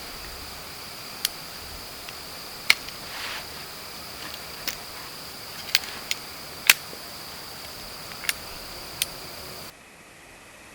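Outdoor insect chorus, a steady high-pitched drone, with about eight sharp pops and clicks at irregular intervals. About a second before the end it cuts off to a quieter hiss.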